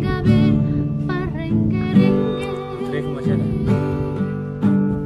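A woman singing a Batak pop song with vibrato over strummed acoustic guitar.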